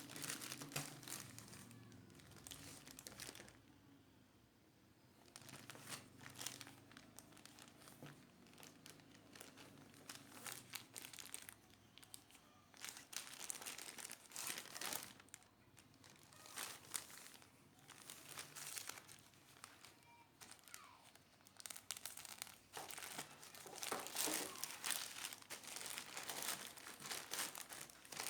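Parcel packaging crinkling and tearing as a package of clothing is opened and handled, in irregular crackly bursts with a brief pause about four seconds in.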